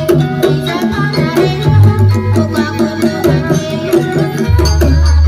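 Banyumasan gamelan music: quick, interlocking pitched metal strikes over hand-drum beats. A deep, steady low tone sets in near the end.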